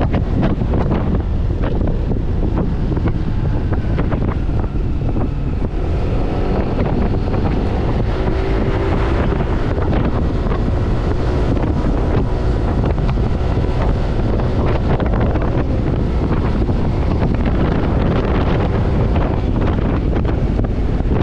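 Heavy wind buffeting on the action camera's microphone while riding a Yamaha NMAX scooter at road speed, with engine and road noise underneath. A faint engine tone rises and falls through the middle stretch.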